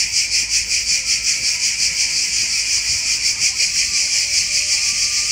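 Cicadas buzzing in chorus: a loud, high hiss that pulses about five or six times a second.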